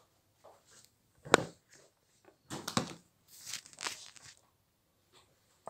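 Scattered household clatter: a sharp knock about a second and a half in, then a few quick clicks and a short rustling patch, like jars and dishes being handled off to one side.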